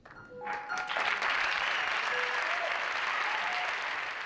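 Audience applause, swelling within the first second and then holding steady, with a few short held notes over it near the start.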